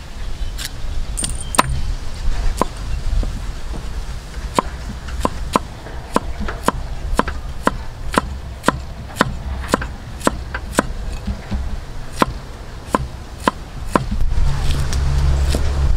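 Steel cleaver chopping a carrot on a wooden cutting board: sharp single knocks, a few spaced out at first, then about two a second. A low rumble grows louder near the end.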